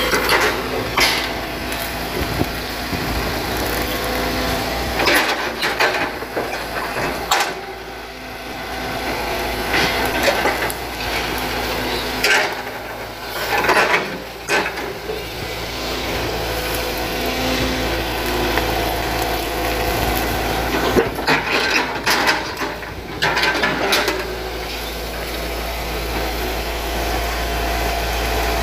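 Hitachi crawler excavator's diesel engine running steadily under load while the bucket tears a small, firmly rooted oil palm out of the ground. Several clusters of sharp cracking and snapping from roots and fronds breaking, the loudest around the middle and again about three-quarters through.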